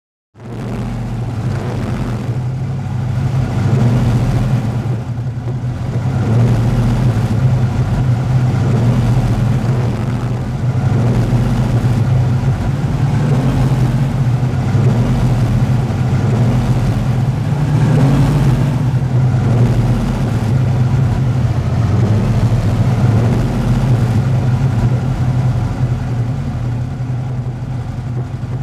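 Vintage muscle car engine idling steadily, with small swells in level now and then.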